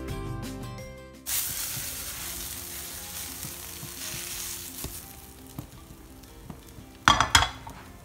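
Grated zucchini and carrot sizzling in a hot frying pan over high heat, the hiss starting suddenly about a second in and slowly fading as the vegetables are tipped out. A brief loud clatter of the pan comes near the end.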